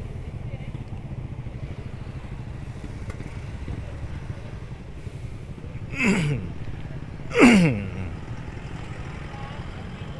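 Steady low motorcycle engine rumble, with two vehicles passing close by about six and seven and a half seconds in, each engine note dropping sharply in pitch as it goes past.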